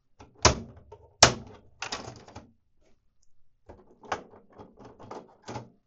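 Hard plastic clicks and rattles as ink cartridges are pressed down and unclipped from the carriage of an HP Envy inkjet printer. Two sharp snaps come in the first second and a half, followed by runs of lighter clicking and rattling.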